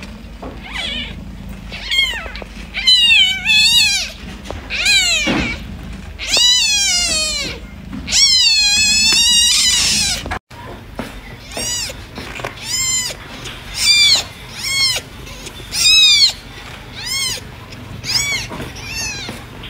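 Newborn kittens mewing in high, thin cries: long drawn-out cries in the first half, then, after a sudden break, shorter cries about once a second.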